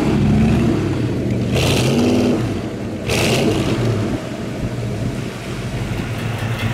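Big-block V8 of a 1970 Chevelle SS 454 running, with two brief rises in revs about one and a half and three seconds in.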